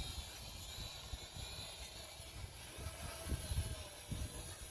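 Gusty wind buffeting the microphone in uneven pulses, stronger a few times in the second half, over the faint steady whine of a Holy Stone HS120D quadcopter's propellers.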